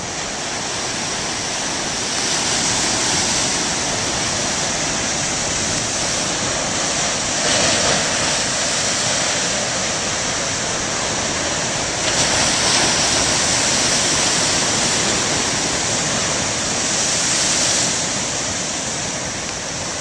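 Large storm waves breaking in heavy surf, a continuous rush of white water that surges louder about a third of the way in and again just past halfway.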